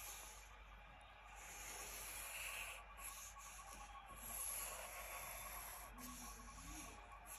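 Faint sound of a pencil drawn across paper in long, slow strokes, coming in a few soft swells of scratchy hiss.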